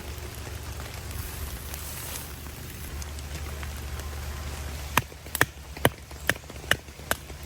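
Steady rain pattering on the camp, then about five seconds in a run of sharp taps, about two a second.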